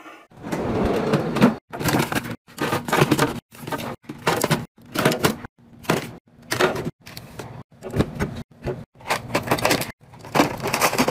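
Hands handling boxed snack packs and plastic bins while stocking a refrigerator drawer: more than a dozen short bursts of clattering handling noise, each cut off abruptly.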